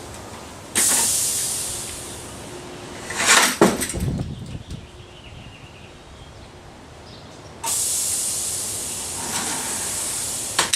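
Pneumatic cylinder of a home-built scissor hinge prop cycling: a sudden hiss of compressed air venting through the solenoid valve's exhaust mufflers about a second in, a short burst of knocks and rattles from the scissor mechanism around three seconds in, then a second, longer hiss of air starting sharply near the end.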